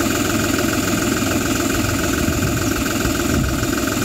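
An engine running steadily, with an even, rapid pulsing drone.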